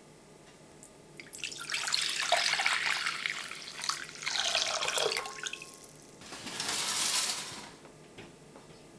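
Braising broth poured from a stainless steel pan into a glass mixing bowl, the stream splashing into the liquid for about four seconds, followed by a second, shorter burst of splashing.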